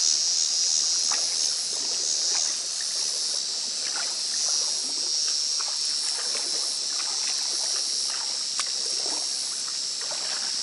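A steady, high-pitched insect chorus, the loudest sound, with small irregular splashes and trickles of water as hands work in shallow, algae-covered pond water.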